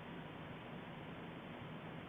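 Steady faint hiss of background noise, even throughout, with no distinct sounds standing out.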